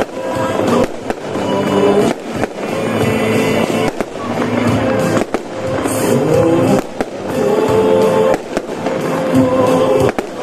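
Fireworks going off in irregular sharp bangs over loud music playing from loudspeakers, recorded on a smartphone.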